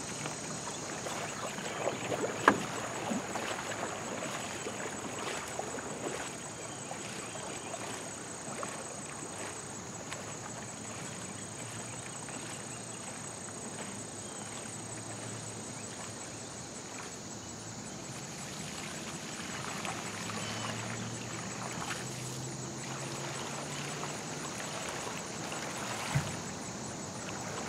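Kayak paddle strokes splashing as a Westside Boat Shop Marauder racing kayak pulls away from the bank, fading to faint lapping water, then splashing again as the kayak comes back fast near the end. A steady high insect drone runs throughout.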